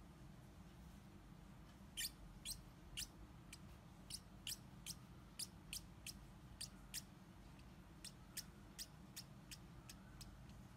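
Marker pen tip squeaking on paper in a run of short strokes, about two a second, starting about two seconds in and stopping near the end, as the scales on the monster's tail are drawn.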